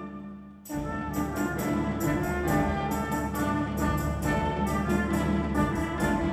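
Wind band playing: a loud held chord breaks off and its reverberation dies away, then under a second later the band comes back in, with brass to the fore, playing short, detached notes.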